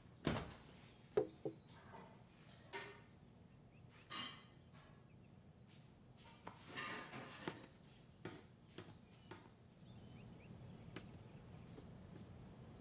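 Small household handling sounds: a tea cup knocked down onto a table, with a sharp click about a second in, then cloth rustling as a man rises from the sofa and a few soft footsteps. A faint steady room hum comes in near the end.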